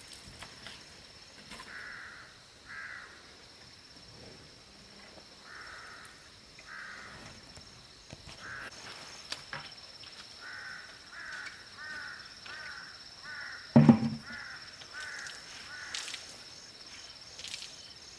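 A bird calling over and over in short, evenly pitched calls, a pair at a time at first and then in a quicker run. A single loud thump about fourteen seconds in.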